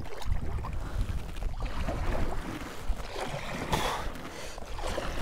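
Wind buffeting the microphone in uneven gusts over water and handling noise from a Jackson Kayak Big Tuna fishing kayak.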